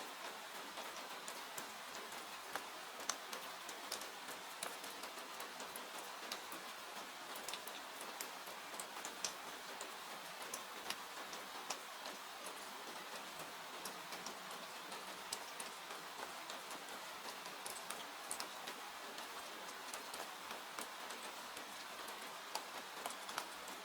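Steady rain falling, with a wood fire crackling in a fireplace: an even hiss of rain with small crackles scattered all through it.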